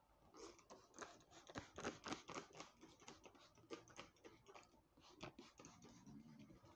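A quick, irregular run of faint light clicks and scratches, several a second, thinning out after about five seconds.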